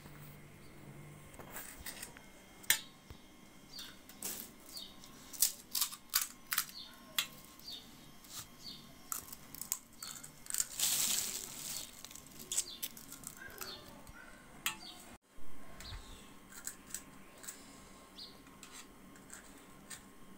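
Scattered sharp clicks and crinkles from handling crisp fried puris and a plastic bag, with a longer rustle of the plastic bag about ten seconds in.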